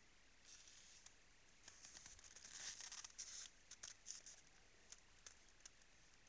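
Faint crunching and scraping from a moose licking and gnawing at the frozen ground of a salt lick, busiest in the middle, then a few separate sharp ticks.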